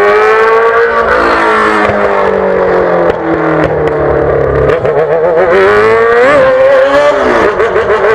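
A Yamaha XJ6's 600 cc inline-four running loud through a straight-pipe exhaust under way. The revs top out about half a second in, ease off slowly for several seconds, then waver with a short blip of throttle about six seconds in.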